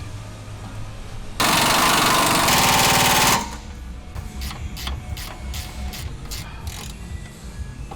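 Impact wrench hammering on a suspension bolt in one continuous rattle of about two seconds, then a string of short trigger blips.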